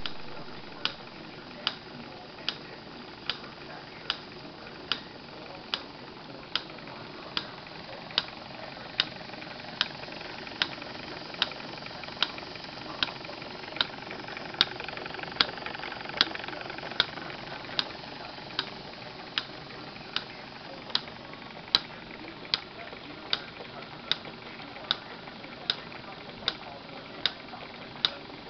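Jensen #25 toy steam engine running and driving a miniature lineshaft workshop through spring belts: a steady whirring hiss with a sharp, regular click a little more than once a second. The hiss swells a little midway.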